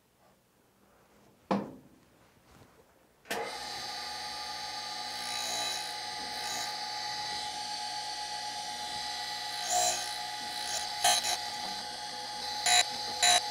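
A knock, then about three seconds in a surface grinder suddenly starts running with a steady whine, sharpening an end mill in a grinding fixture. Several short louder bursts come near the end.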